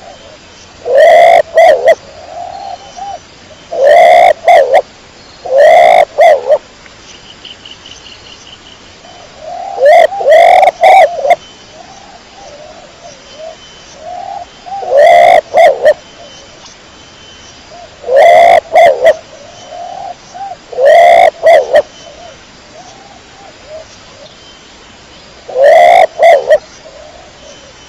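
Domestic pigeon cooing close to the microphone: loud short phrases of low, throaty coos, each about a second long, repeated every few seconds with softer coos in between.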